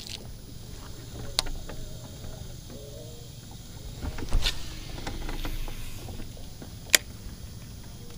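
Boat's electric trolling motor humming steadily, with three sharp clicks or knocks on top, the loudest about seven seconds in.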